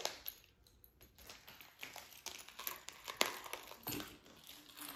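A clear plastic ring binder and its vinyl envelope pages being handled and opened: soft crinkling with a few light clicks and taps, the sharpest a little after three seconds in.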